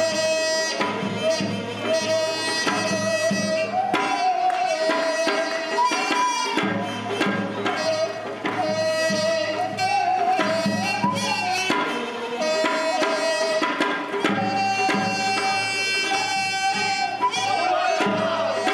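Traditional Korean music: a wavering, bending melody line carried over regular drum strokes.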